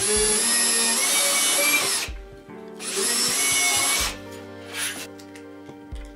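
Electric drill boring through the screw hole of a small brass hinge into a clear plastic sheet. There are two bursts of drilling, each opening with a high whine: the first about two seconds long, the second about a second and a half after a short pause.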